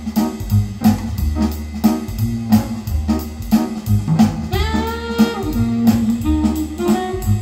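Instrumental band music played back over custom-made hi-fi bookshelf speakers, driven by a class AB power amplifier. A strong bass line runs under a steady drum beat, and about halfway through a lead line bends up and down in pitch.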